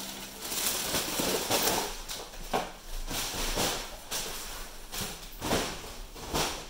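Clear plastic bag crinkling and rustling in irregular swishes as empty snack boxes and wrappers are pushed into it and the full bag is carried.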